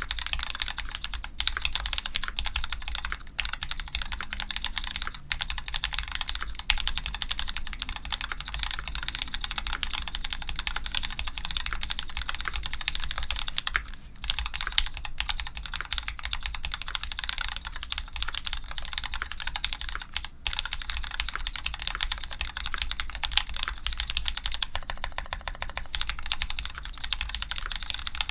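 Continuous fast typing on a custom Dolphin linger re mechanical keyboard with lubed Cherry Retooled Black linear switches, an aluminium plate and GMK keycaps: a dense run of key clacks, with brief pauses about 14 and 20 seconds in.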